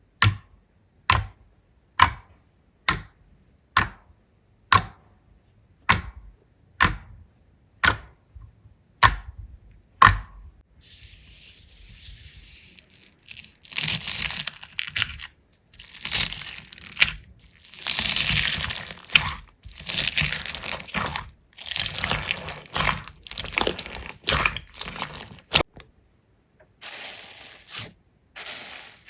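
Slime being handled: about ten sharp pops come roughly once a second, then a longer run of crackly, crunchy, tearing sounds as the slime is squeezed and pulled apart.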